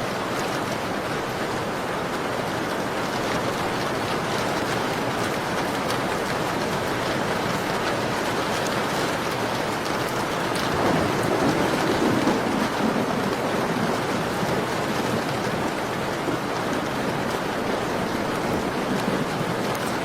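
Steady rain falling on a window, an even hiss of drops that swells briefly louder about halfway through.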